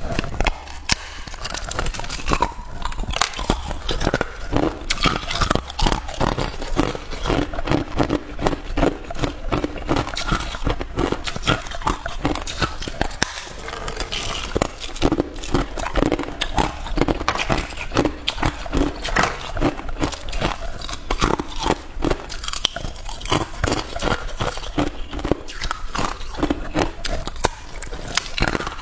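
Hard clear ice being bitten and chewed: a dense, continuous run of sharp crunches and cracks.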